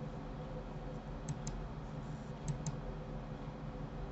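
Computer mouse clicking: two quick double clicks, the pairs about a second apart, over a steady low hum.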